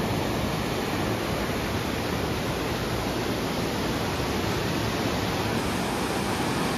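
Parvati River, a fast mountain river, rushing over boulders through whitewater rapids: a steady, even sound of running water.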